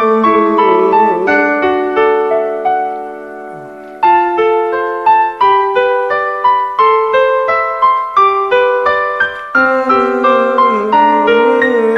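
Instrumental break of a pop ballad, played mainly on piano or electric keyboard in struck, ringing chords, with a wavering melody line over it. The music dies away about three seconds in and comes back abruptly a second later.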